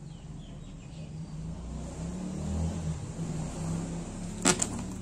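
A passing motor vehicle's engine hum, swelling a little after the middle and easing off, with two sharp clicks close together about four and a half seconds in.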